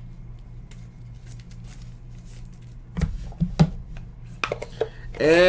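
Trading cards and a card case being handled on a desk: faint taps, then a few knocks about three seconds in and again near four and a half seconds, over a steady low hum. Near the end a man's voice begins a long drawn-out note.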